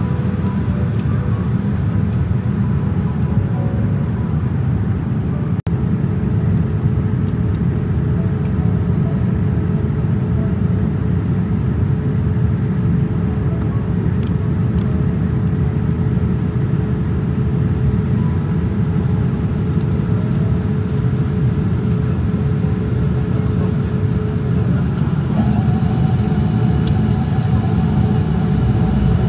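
Steady rumble of a Boeing 787-10 cabin in flight by a window over the wing: engine and airflow noise, with a faint steady hum on top. It drops out for a split second about six seconds in, and a faint higher hum joins near the end.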